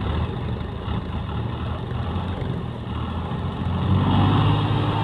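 Al-Ghazi tractor's diesel engine running hard under load, getting louder about four seconds in as it revs up.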